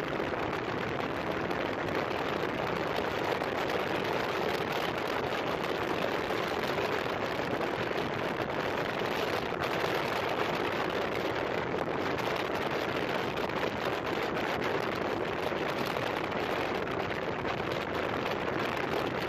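Steady rushing wind noise over the microphone while riding an Asya Ultra 150 motorcycle, with the engine and road noise running underneath, unchanging throughout.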